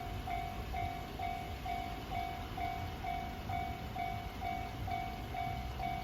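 Railway level crossing warning alarm ringing: an even, pitched 'kan-kan' tone repeating about twice a second, over a low rumble.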